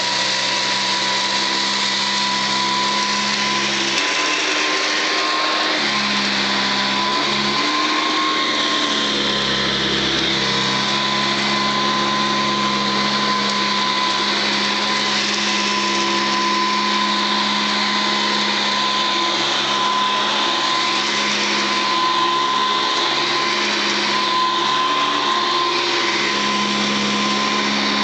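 Hoover Commercial upright vacuum cleaner running steadily as it is pushed over carpet sprinkled with cat litter, a steady whine above the motor's rush of air. Its lower hum dips and shifts for a few seconds early in the pass.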